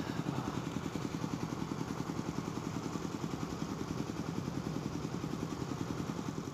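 A small engine idling steadily with fast, even pulses.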